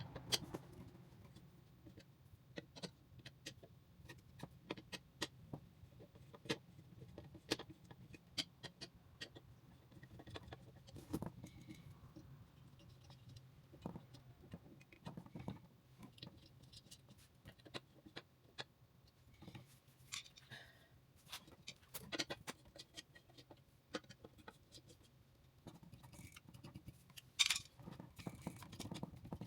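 Faint, irregular clicks and clinks of hand tools and small metal parts being handled during motorcycle repair work, a few sharper knocks among them, over a faint steady low hum.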